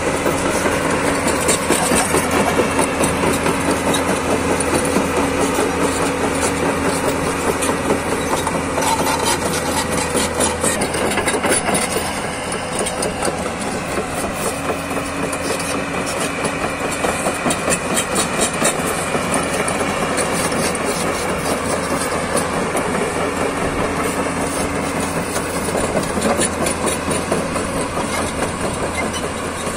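Diesel engine of a JCB JS205 tracked excavator running steadily, dropping slightly in loudness about twelve seconds in.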